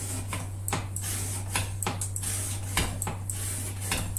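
CPM 125V steel knife blade making repeated cutting strokes at about two a second, each a short, crisp stroke, over a steady low hum.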